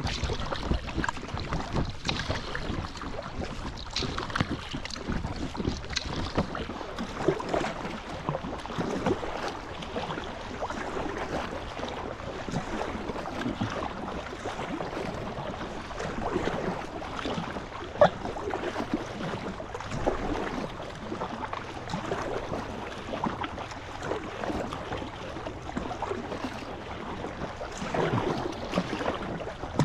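Paddling an inflatable Alpacka Classic packraft into a light headwind: paddle strokes splash and small waves slap against the hull, with wind buffeting the microphone. One sharp knock stands out a little past halfway.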